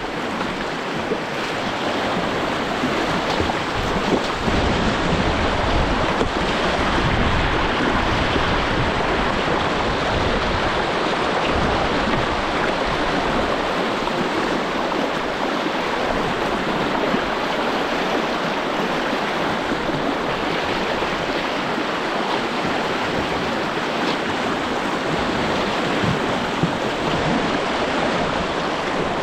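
White water rushing over a shallow river rapid: a loud, steady hiss of running water.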